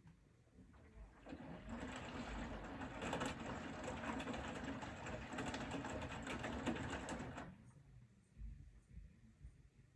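Bosch Serie 4 front-loading washing machine working through its prewash. A burst of machine and water noise begins about a second in, holds for about six seconds, then stops suddenly.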